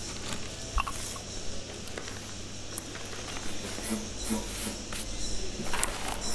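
Newspaper handled and folded: scattered small clicks and knocks, then a burst of paper rustling a little before the end as the sheets are folded, over a steady low hum.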